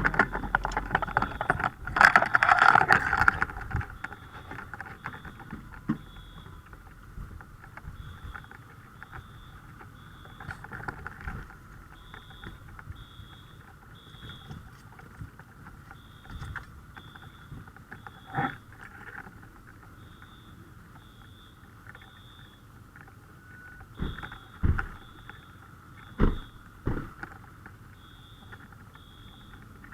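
Fire alarm beeping in the temporal-3 evacuation pattern: three short high beeps, a pause, repeating about every four seconds, faint over a steady hiss. A loud burst of noise comes about two seconds in, and a few sharp thumps follow later.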